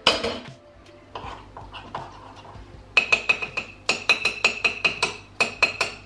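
A metal spoon stirring thick cake batter in a ceramic mug: soft scraping at first, then from about three seconds in quick clinks against the mug's side, about six a second, each ringing briefly.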